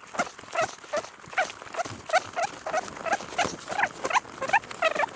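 A man's voice counting, sped up to a high, squeaky chipmunk pitch: a quick run of short clipped words, about four a second, with light clicks among them.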